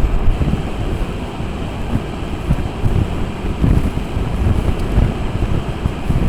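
Strong wind buffeting the microphone in irregular gusts, with a low, uneven rumble.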